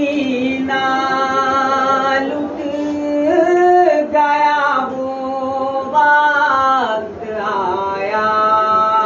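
A single unaccompanied voice chants a Shia noha in long drawn-out held notes. The notes slide up and down between pitches, with a short break about seven seconds in.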